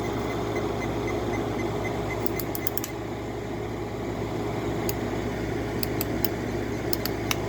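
An 8000 BTU window air conditioner running steadily, its compressor and fan on high speed making an even hum. A few short light clicks come through it.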